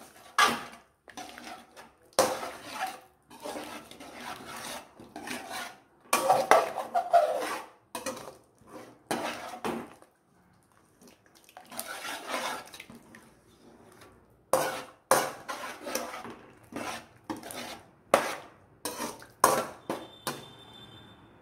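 Metal spoon stirring soup in an aluminium pot, with irregular scrapes and clinks against the pot's side and base. There is a short pause about ten seconds in.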